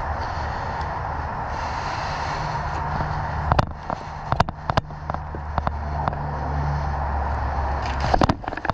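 Scattered sharp cracks of airsoft guns firing over a steady background noise: a pair about three and a half seconds in, single shots over the next few seconds, and a quick burst of several shots near the end.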